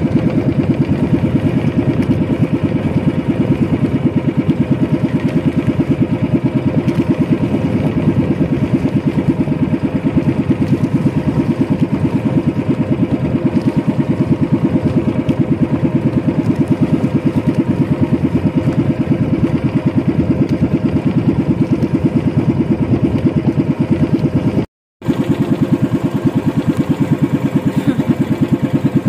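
Outrigger fishing boat's small engine running steadily with a fast, even putter. The sound cuts out for an instant about three-quarters of the way through, then carries on unchanged.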